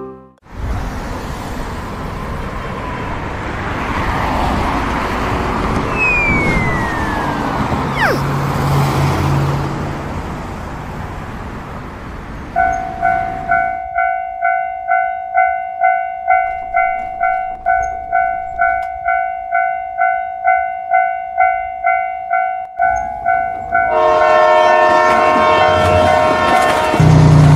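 A rushing noise at first. Then a railway level-crossing warning bell rings about twice a second for around ten seconds, and near the end a diesel locomotive's horn sounds as the train reaches the crossing.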